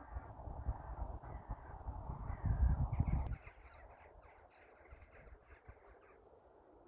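Wind buffeting the microphone, with a flock of birds calling faintly behind it. After a sudden cut about three seconds in, the wind noise drops away and many short calls from the flock follow in quick succession for about three seconds, then fade.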